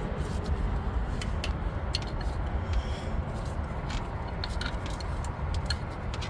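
Irregular light metallic clicks and clinks of hand tools loosening the wheel speed sensor's mounting on a car's front strut, over a steady low rumble.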